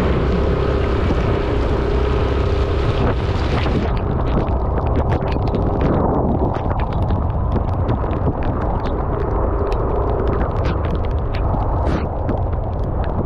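Yamaha scooter's engine running steadily under wind buffeting on the microphone, with sharp knocks and clicks from riding a rough, wet gravel road. About four seconds in the wind hiss drops away, leaving the engine drone and the knocks.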